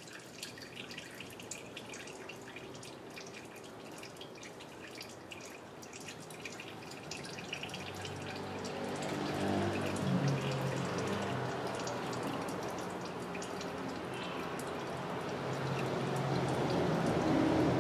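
Automatic transmission fluid draining from a Mercedes 722.6 gearbox's oil pan in a thin stream, trickling and dripping into a catch pan with rapid small ticks. A louder low hum swells in the second half.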